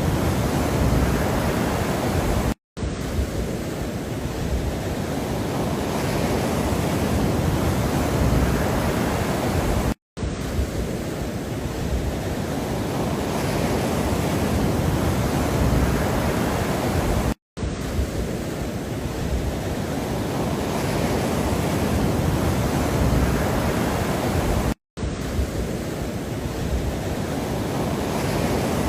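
A steady rushing noise, deepest at the bottom and thinning toward the top, played as a loop of about seven and a half seconds that cuts out for a split second four times.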